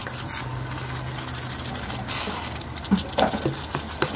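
Pot of okra and vegetables bubbling at the boil over a low hum, with a ladle stirring; about three seconds in it knocks against the pot several times.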